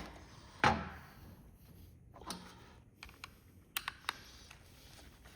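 Scattered light clicks and taps of a plastic remote control being handled and worked on during disassembly. One louder knock comes about a second in, and a few smaller sharp clicks follow near the middle.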